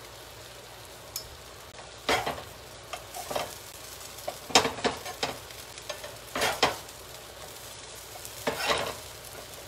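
Pancakes frying in a pan with a steady sizzle, and a utensil scraping and stirring against the pan in short strokes that come in little clusters every second or two.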